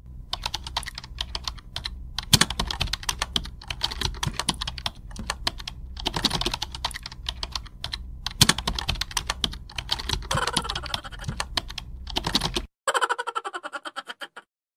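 Rapid keyboard typing, a dense run of irregular key clicks over a low hum, cuts off abruptly about thirteen seconds in. A short run of evenly spaced clicks with a tone follows and then stops.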